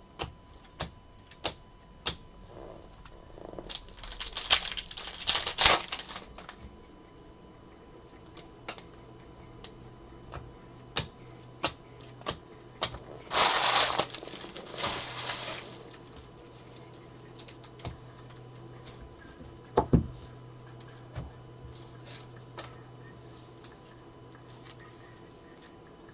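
Trading cards being handled and sorted on a table: a scattered run of light clicks and taps as cards are flicked and stacked, two stretches of a couple of seconds of rustling, and a single low thud about two-thirds of the way through.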